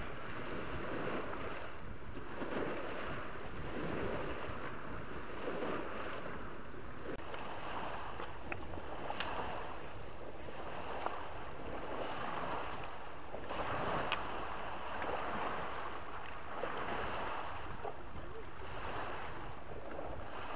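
Waves washing against rocks on a river shore, swelling and easing every couple of seconds, with wind buffeting the microphone.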